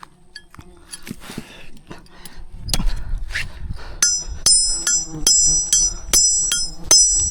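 Hammer blows on a metal nail: scattered knocks and scrapes, then from about four seconds in a steady run of strikes, about three a second, each with a high metallic ring.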